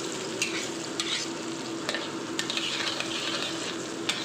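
Sliced shallots and garlic sizzling in hot oil in a pan as they are stirred, with sharp knocks of the stirring utensil against the pan every half second to a second.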